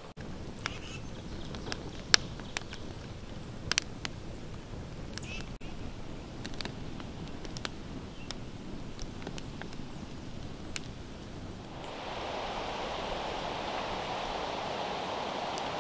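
Log fire burning, with sharp crackles and pops from the burning wood scattered over a low rumble. About twelve seconds in it gives way to a steadier, louder hiss.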